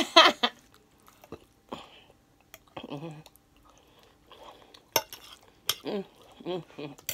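Someone eating pasta: a metal fork clicking and scraping on a plate, with chewing. Short vocal sounds come at the very start, which is the loudest part, and again about six seconds in.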